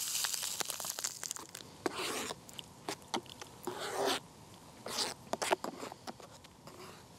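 A metal spoon stirring thick food in a small metal camping mug: several short scraping strokes against the mug, with light clinks in between. It opens with a brief rustle.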